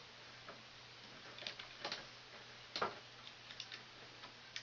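Scattered light clicks and taps, about seven at irregular spacing and loudest near the middle, from hands handling wires and tools in an HVAC control panel, over a faint steady low electrical hum.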